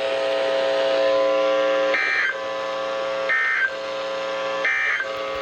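Weather radio receiver's electronic alert alarm sounding between broadcast messages: a steady buzzy tone, broken three times by a short higher blip about every second and a half.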